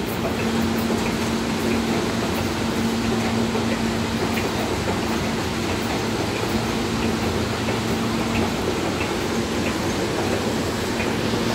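R160A subway train standing at the platform, its air-conditioning and equipment giving a steady rushing hum with a constant low tone.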